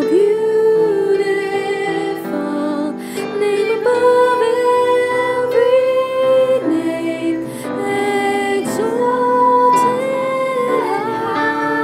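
A slow worship song: a singer's held, wavering notes over soft instrumental accompaniment.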